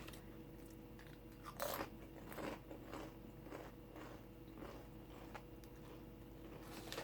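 Someone chewing crisps: a run of quiet crunches, about two or three a second.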